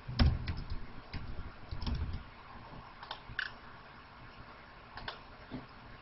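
Faint, scattered clicks of a computer mouse at a desk, with a low rumble through the first two seconds.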